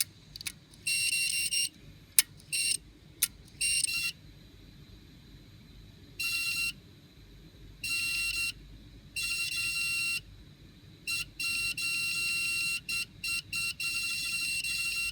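Failing hard disk drive making abnormal mechanical noise: irregular bursts of a high-pitched tone, each half a second to a second long, with a few sharp clicks in the first few seconds. Such noise is the sign of a physical, mechanical fault inside the drive.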